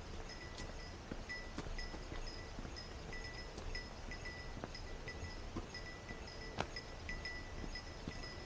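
A small bell jingling on and off, its ringing coming in short repeated spells, with scattered light clicks and knocks and a low rumble underneath.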